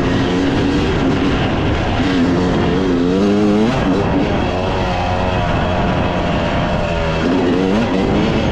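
Off-road vehicle engine revving under riding, its pitch climbing and dropping several times over a steady low rumble.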